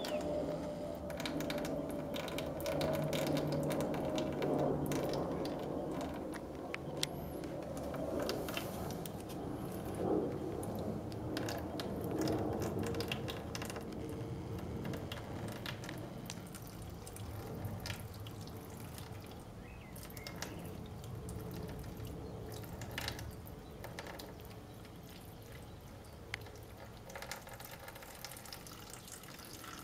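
A thin stream of water pouring from a plastic watering can's spout into a shallow plastic saucer, splashing and trickling steadily, with scattered small clicks and drips. It grows gradually quieter toward the end.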